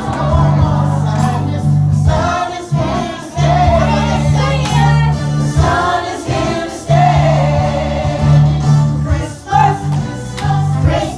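A song with a group of voices singing along to a musical accompaniment that has sustained bass notes.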